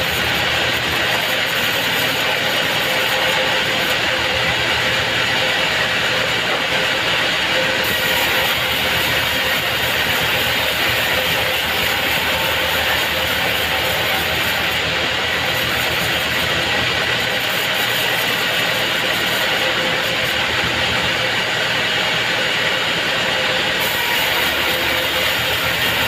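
Sawmill band saw running and ripping a squared mahogany block into slabs: a steady, dense machine noise with a constant whine, unbroken throughout.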